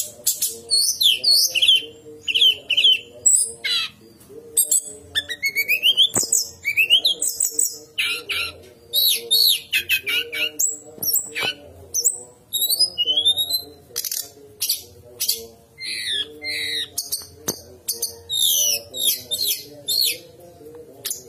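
Brown-chested jungle flycatcher singing: rapid bursts of high whistled notes, quick rising and falling slurs and sharp clicking notes, phrase after phrase, over a low steady drone.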